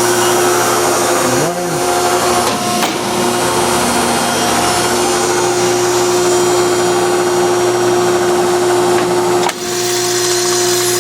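Hydraulic power pack of a horizontal baler, driven by a 30 hp three-phase electric motor, running with a steady hum and whine. The sound dips briefly about nine and a half seconds in, then carries on.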